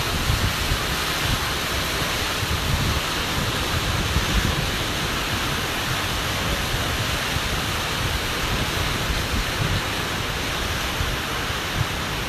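Wind blowing across the microphone: a steady rushing hiss with irregular low buffeting rumbles.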